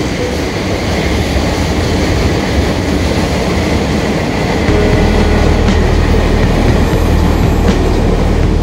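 Taiwan Railway train running past on the rails, a steady noise of wheels and rails that gets louder about five seconds in.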